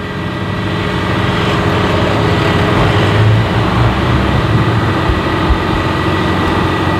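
Street traffic: a passing motor vehicle's engine and road noise, growing louder over the first three seconds and then holding.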